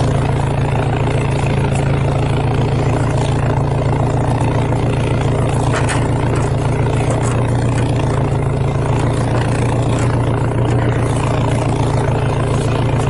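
Winch on an off-road Suzuki Samurai pulling steadily on a long line under load: a loud, even motor hum with a low drone, starting suddenly and holding constant.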